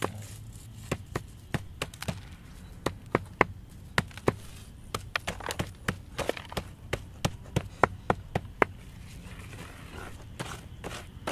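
Small chunks of red rock clicking and knocking together as they are handled and broken over a flat stone, an irregular run of sharp taps with some brief scraping in between.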